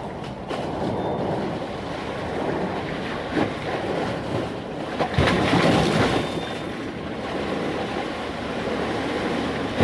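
Sea waves washing in, a continuous surf rush with one bigger surge about five seconds in, with wind buffeting the microphone.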